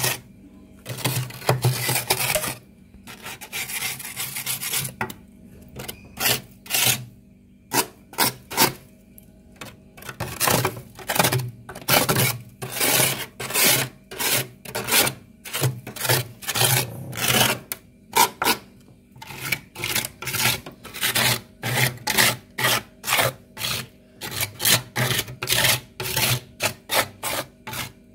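Thick frost and ice being scraped off the inside walls of a freezer: repeated short scraping strokes, coming faster and closer together in the last third.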